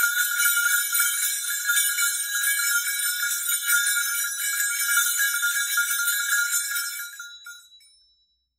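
Muted bells shaken continuously in a dense high-pitched jingle over a few steady bell tones, stopping suddenly near the end with a brief ring-out.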